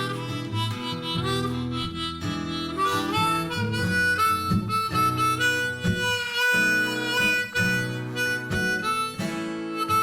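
Instrumental blues break: harmonica playing held, bending notes over acoustic guitar accompaniment.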